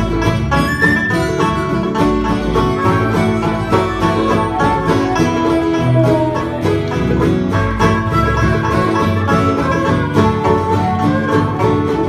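Acoustic folk band playing an instrumental passage: two banjos picking over an acoustic guitar in a steady, even rhythm.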